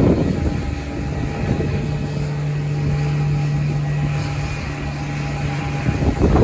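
Airbus A320neo's CFM LEAP-1A jet engines running with a steady low hum and fainter steady higher tones. Wind buffets the microphone at the start and again near the end.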